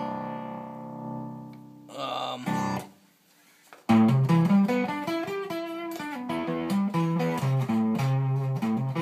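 Electric guitar played through a Ghost Effects Sounds of Today MK1 Tone Bender fuzz pedal with the drive knob at noon. A chord is struck and left to ring down, then a short strum, then a riff of single notes from about four seconds in. At this drive setting the pedal's output is substantially lower.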